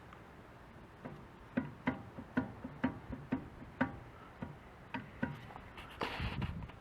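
Light knocks, about two a second, from the front wheel of a Suzuki Jimny JA11 being rocked by hand: play in a worn front hub bearing.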